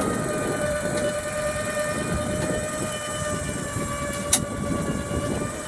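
A motor running with a steady whine at one unchanging pitch, over a rough low rumble. A single sharp click comes a little past four seconds in.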